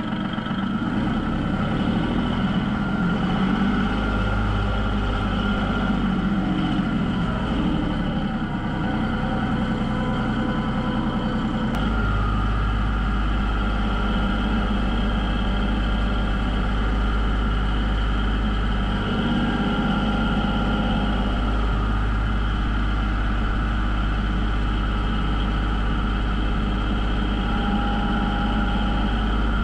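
Farm tractor's diesel engine running steadily as it drives with its front loader and pallet forks.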